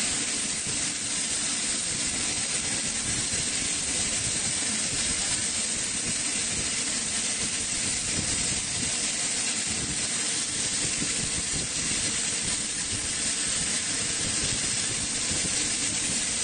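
Steady turbine hiss from a Lockheed P-3 Orion on the ground, with a faint low hum beneath it.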